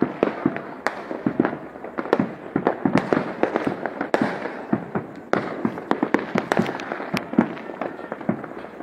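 Fireworks going off all around: dense, irregular bangs and pops, several each second, with no break between them.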